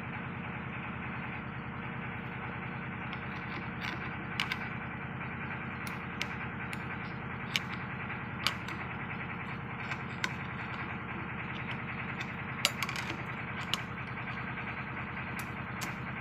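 A steady engine drone runs throughout, with scattered sharp metallic clinks, about a dozen in all, as steel pry bars work against a marine gearbox's thrust plate to lever out its pin.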